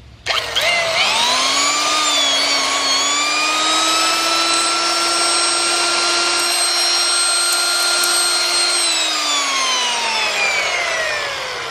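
Old Thor electric drill switched on: its motor whines up to speed over about two seconds and runs steadily. Near the end it is switched off and winds down, the whine falling in pitch.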